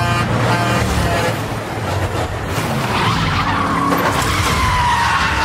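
Movie soundtrack of a road scene played on the car head unit: truck and car engines running with long skidding tyre squeals.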